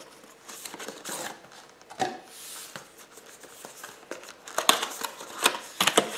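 Cardboard packaging being handled: a sleeve slid off a box and the lid flap pulled open, with rustling and scraping and a light knock about two seconds in. The sharpest, loudest scrapes and snaps of cardboard come in the last two seconds.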